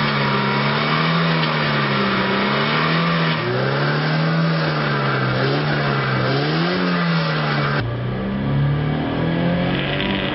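Ford Scorpio car engine being revved repeatedly while stationary, its pitch rising and falling with each blip of the accelerator.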